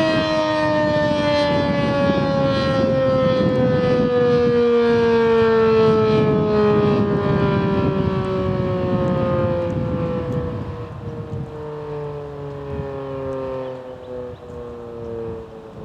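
Federal Signal 2001-SRN outdoor warning siren winding down after its test signal. Its pitch falls steadily, and the sound fades over the last few seconds.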